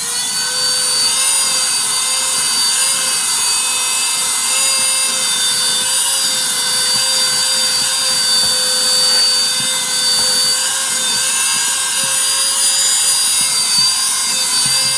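Handheld cordless mini vacuum cleaner running steadily at full power: a loud, high-pitched motor whine over a rushing of air, its nozzle passed over a T-shirt.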